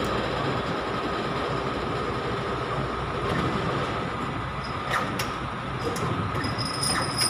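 A heavy diesel engine running steadily, with a few faint clicks about five seconds in and near the end.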